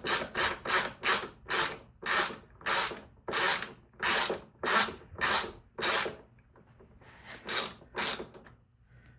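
Socket ratchet clicking through repeated back-strokes as it unscrews a threadlocked motorcycle rack bolt. The strokes come quickly at first, then slow and lengthen, stop about six seconds in, and two more follow near the end.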